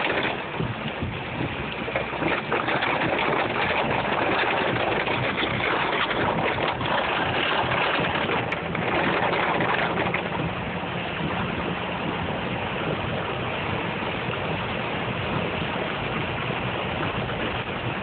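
Steady noise of heavy rain on a Jeep, heard from inside the cabin, with the engine and tyres on the wet road underneath.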